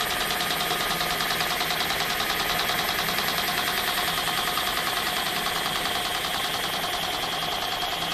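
Homemade miniature single-cylinder spark-ignition engine running steadily at speed, its firing a rapid, even beat.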